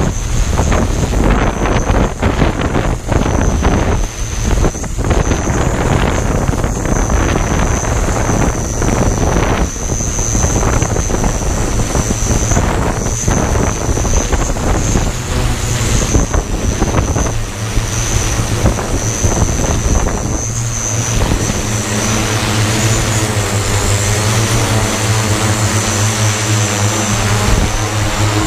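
Hexacopter's electric motors and propellers running in flight, with a steady high whine above a low hum. Wind buffets the microphone in gusts through the first half; over the second half it eases and the steady propeller hum comes forward.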